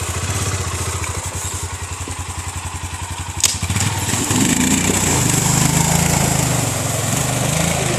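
ATV engine idling with an even, rapid low pulse, then a sharp click about three and a half seconds in, after which the engine revs up and its pitch rises and falls.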